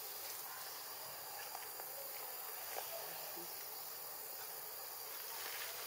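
Steady high-pitched insect chorus of a tropical forest, with a few faint clicks.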